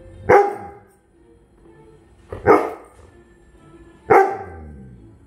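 A dog barking at a television: three loud barks about two seconds apart, each sliding down in pitch.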